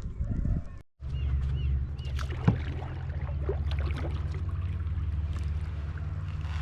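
Kayak paddling on a reservoir: scattered water splashes and drips from the paddle over a steady low rumble. The sound breaks off abruptly about a second in and resumes.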